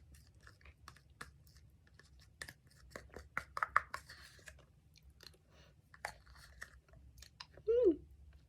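Eating Greek yogurt mixed with dry oatmeal: a spoon clicking against the container, with chewing and crunching of the oats. A short falling hum of the voice comes near the end.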